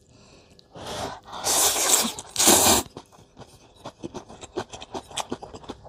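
A person slurping rice noodles in two loud sucking rushes between about one and three seconds in, then chewing with many small wet clicks.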